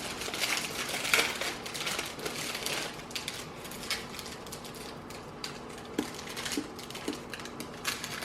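Chocolate bar wrappers crinkling and tearing as the bars are opened, with irregular rustling that is busiest in the first few seconds and then thins to a few scattered crackles and clicks.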